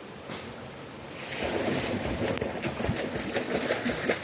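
Water splashing and sloshing close to the microphone, starting about a second in, with many small bubbling clicks.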